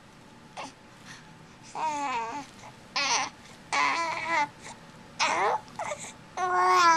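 Baby babbling: a string of about six short, high-pitched vocal sounds with rising and falling pitch, starting a little under two seconds in.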